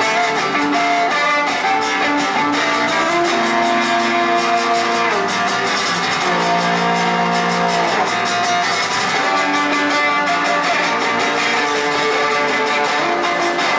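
Violin and acoustic guitar duo playing an instrumental live through a small portable amplifier: the guitar strummed rapidly and steadily, the violin carrying the melody in long held notes that step up and down.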